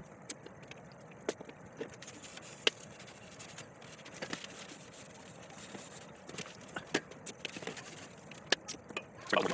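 Irregular sharp clicks and light knocks from parts and tools being handled, over a faint steady hiss.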